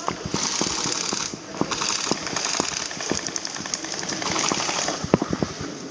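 Airsoft guns firing rapid full-auto bursts, a fast rattle of shots that starts and stops, with scattered sharper clicks and knocks, the sharpest cluster about five seconds in.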